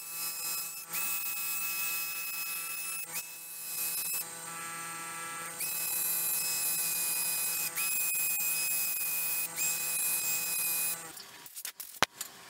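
Hand drill with an 80-grit sanding disc power-sanding a spinning silver maple burl and resin bowl on a Nova Galaxi DVR lathe: the drill whines and the abrasive hisses in spurts of a second or two over the lathe's steady hum. Everything stops about eleven seconds in, followed by a sharp click.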